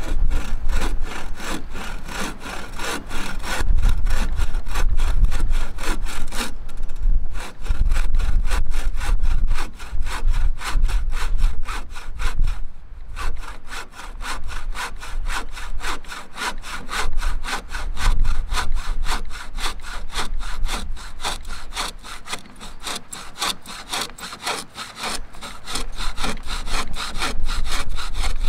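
Hand bow saw cutting through a wooden pole with steady back-and-forth strokes, pausing briefly twice.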